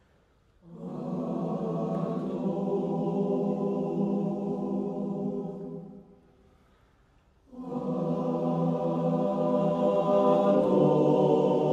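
Men's choir singing long held chords in two phrases: the first lasts about five seconds, then comes a pause of about a second and a half, and the second phrase swells louder near the end.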